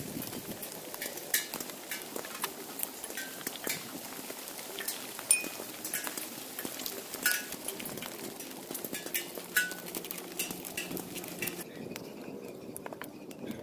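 Pestle knocking and grinding in a stone mortar, pounding a chili paste: irregular sharp clinks, some with a brief ring. Near the end the knocking gives way to quieter handling sounds.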